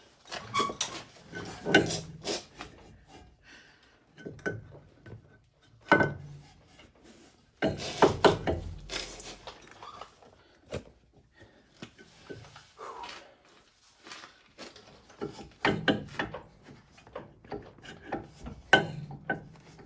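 Intermittent metal clunks, scrapes and clinks as a CV axle's splined shaft is worked into the wheel hub, the splines not yet lined up. The noises come in irregular bursts with quiet gaps between.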